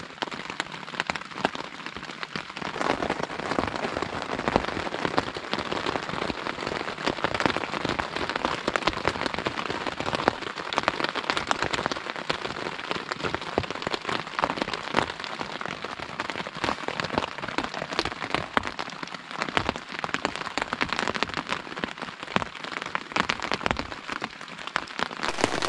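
Rain falling on the MSR Elixir 1 tent's fly sheet, heard from inside the tent: a dense, continuous patter of drops on the fabric that grows heavier about three seconds in.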